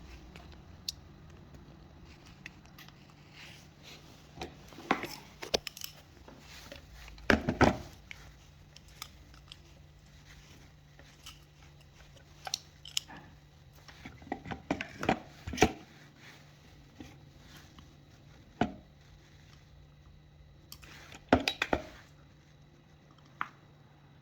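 Scattered light clicks, taps and knocks of small hard parts and tools being handled, some in quick clusters, over a faint steady hum. It is the handling that goes with probing supercapacitor cells for internal resistance.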